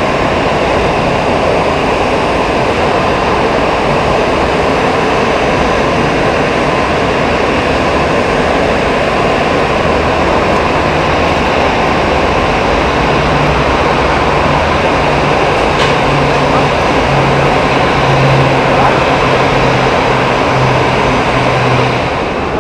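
Airbus A321 jet engines at taxi thrust, a steady loud rumble, with a low hum growing stronger in the second half as the airliner turns toward the microphone.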